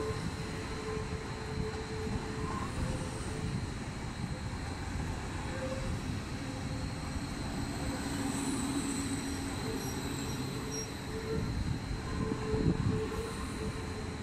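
A MÁV-START Stadler FLIRT electric multiple unit (class 415) rolling slowly along the platform, with a steady rumble of running gear and motors. Short high-pitched wheel squeals come about two-thirds of the way through.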